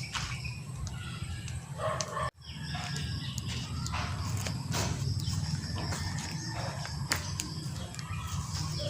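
Backyard ambience of chickens and small birds calling, over a steady low hum. All sound briefly cuts out about two seconds in.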